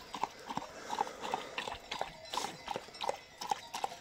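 A dog lapping water quickly and steadily, with wet slurping laps at about four to five a second.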